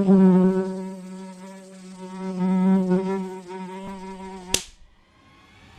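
Mosquito buzzing sound effect: a steady, slightly wavering drone, ended about four and a half seconds in by a single sharp slap as the insect is swatted.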